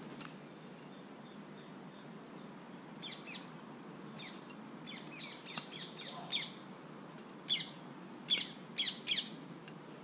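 Short, sharp bird calls, each a quick falling chirp, given singly and in pairs about a dozen times, loudest in the last few seconds. Faint birdsong behind them.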